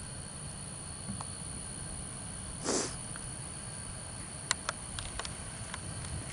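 A single short nasal sniff near the middle, over a steady low background rumble, followed by a few faint clicks.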